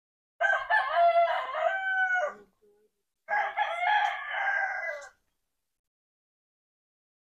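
A rooster crowing twice, each crow about two seconds long, the second starting about a second after the first ends.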